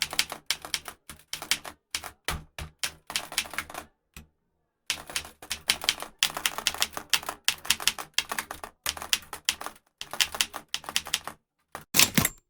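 Old typewriter being typed on: runs of sharp key strikes several a second, with a pause of about a second near the middle.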